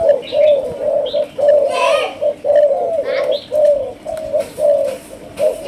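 Spotted doves cooing: an unbroken run of low, hollow coos, about three a second. A few short, higher chirps come in over them.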